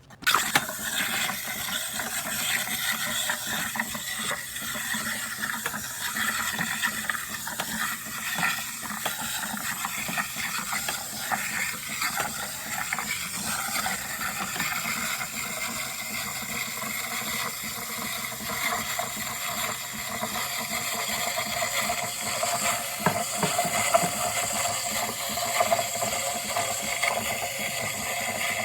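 Espresso machine running with a steady hiss, with no break.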